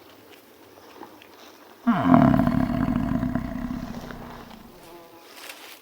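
A large animal's loud roar, starting suddenly about two seconds in with a dropping pitch, then fading out over about three seconds.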